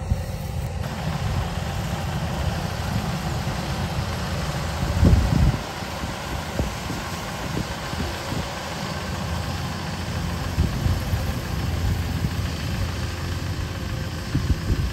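Kubota 105 combine harvester's diesel engine running steadily as the machine cuts rice, a continuous low rumble, briefly louder about five seconds in.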